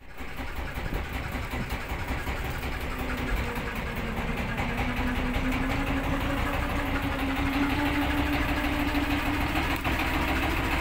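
Boat engine idling steadily, with a faint hum that slowly rises in pitch from a few seconds in.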